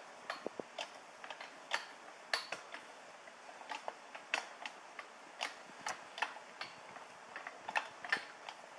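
Scattered small metallic clicks and ticks, irregular and one to three a second, as a spring compressor is slowly backed off and the Diana 56TH air rifle's trigger unit and mainspring ease out of the compression tube.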